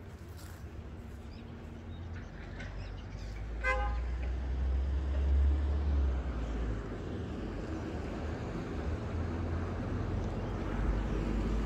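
A short vehicle horn toot about three and a half seconds in, over the low rumble of traffic passing on the road.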